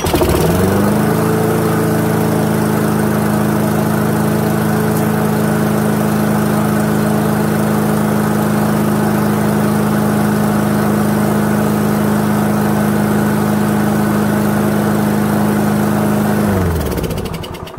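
Toro lawnmower's 159cc Loncin TXP engine (a Honda GCV clone), with its airbox off, starts at once and runs at a steady speed with no surging, its clogged plastic carburetor jet just cleaned out. Near the end it is shut off and winds down.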